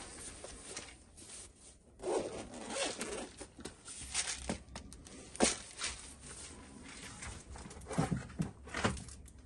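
Short rasping pulls and clicks from small parts being handled while wiring a battery pack into a lamp, a few louder sharp rasps standing out.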